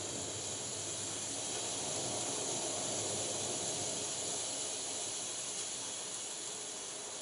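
Steady hissing noise played through the loudspeakers, slowly fading near the end.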